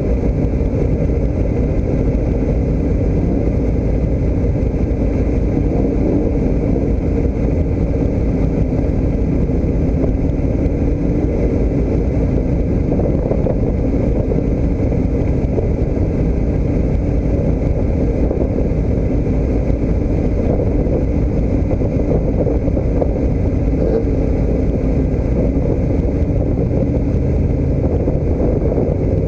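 A motor vehicle's engine running steadily, a constant low drone with no change in pitch or level.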